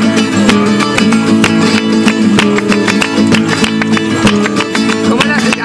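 Instrumental Rocío flamenco music: strummed acoustic guitar with a quick, even beat of hand clapping (palmas) over it.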